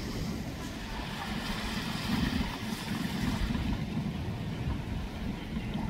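Outdoor wind rumbling on the microphone over the wash of small waves at the shoreline. The lighter hiss of the water fades about halfway through, leaving mostly the low wind rumble.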